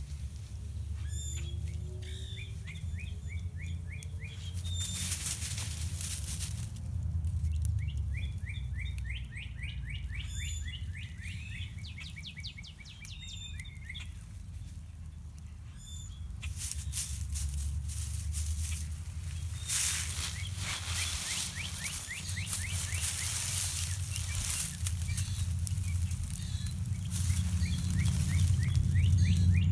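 Small songbirds chirping and singing rapid trills of short repeated notes, in several bouts, over a steady low rumble. Bursts of rushing noise come in about five seconds in and again through the second half.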